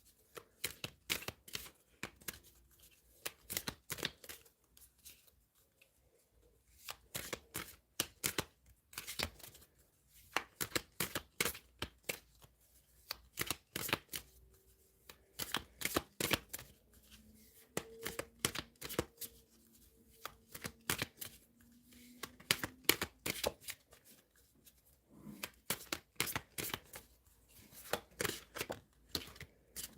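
A tarot deck being shuffled by hand, a rapid patter of card flicks and snaps in runs of a few seconds with short pauses between them.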